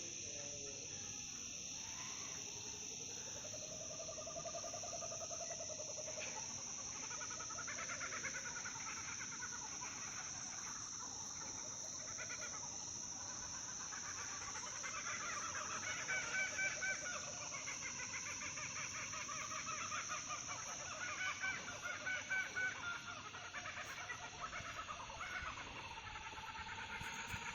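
A group of laughing kookaburras calling, their rising and falling laughs building into louder bouts around the middle and again later, over a steady high-pitched hum of cicadas.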